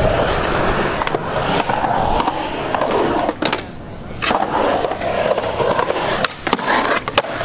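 Skateboard rolling on smooth concrete, its wheels making a steady rumble, broken by several sharp clacks of the board striking the ground. The sound drops briefly just before the middle.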